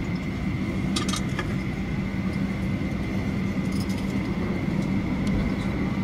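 Cabin noise of a Boeing 737-800 taxiing, its CFM56-7B turbofan engines running at low power: a steady hum with a thin whine above it. A few light clinks come about a second in and again near four seconds.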